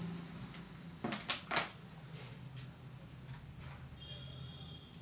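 A few light clicks and taps as flat square pieces of a classroom geometry model are handled on their tray, three close together about a second in and a fainter one a second later, over a faint steady low hum.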